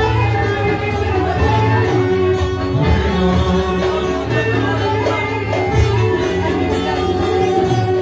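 Loud live band music through a club sound system, with violin and plucked strings over a steady bass line, and a male voice singing into the microphone.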